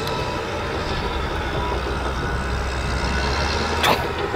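Steady low outdoor rumble, with one sharp click about four seconds in.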